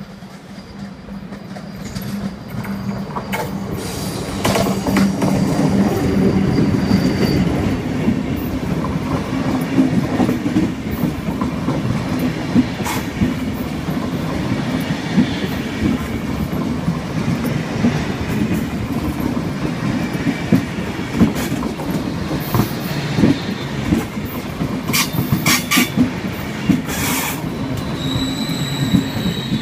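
SBB electric locomotive and double-deck passenger coaches pulling into the station and past the platform. The sound grows as the locomotive comes by about five seconds in, then the coaches roll past, slowing, with a steady rumble, rail-joint clicks and a thin wheel squeal near the end as the train brakes to a stop.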